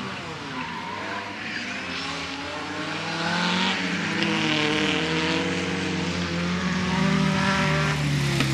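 Several race car engines running and revving at once, their pitch rising and falling, growing louder about three seconds in.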